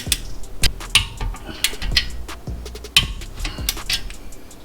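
Ratchet of a wrench clicking in short irregular runs, with small metal clinks, as wheel studs are tightened into the hub with a 5 mm hex bit.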